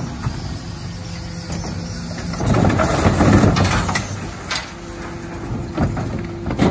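Terberg OmniDel hydraulic bin lift on a Dennis Elite 6 refuse truck raising and tipping two wheelie bins, the truck's hydraulics humming under the engine. It gets louder about two and a half seconds in as the lift rises, and there are sharp clunks in the second half as the bins tip over the hopper.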